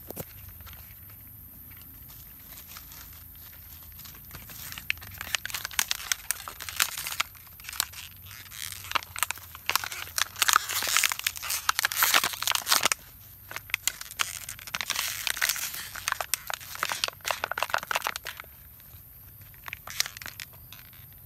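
Thin plastic water bottle crinkling and crackling as a young macaque grips and tugs at it, in dense irregular bursts starting about four seconds in and tailing off near the end.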